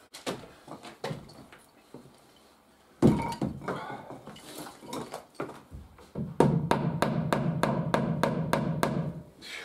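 Hammer driving wooden dowels into the staircase joints, drawing them together: a few scattered knocks, a heavy thump about three seconds in, then a quick run of blows, about four a second, through the last three seconds.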